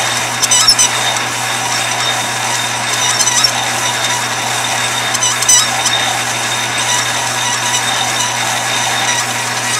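Metal lathe running with a steady motor hum while a lathe tool slowly cuts a groove into a thin spinning brass rod. Brief high squeaks come from the cut, a few less than a second in and again about five and a half seconds in.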